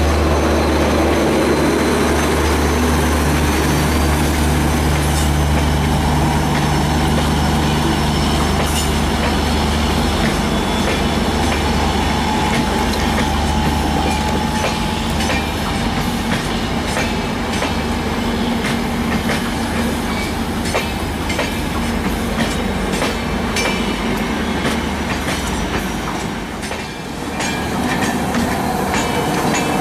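WDP4D diesel-electric locomotive, with an EMD 16-cylinder two-stroke diesel, passing close with a steady low engine drone that fades about halfway through. Its Rajdhani Express coaches then roll by, wheels clicking rhythmically over the rail joints, with some wheel squeal.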